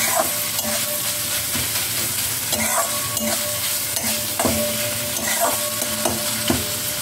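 Metal spatula repeatedly chopping and scraping chicken against a metal kadai, clinking on the pan about once a second, the pan ringing briefly after many strokes, over a steady sizzle of the chicken frying. The chicken is being broken into small crumbs as it cooks in its own released juices.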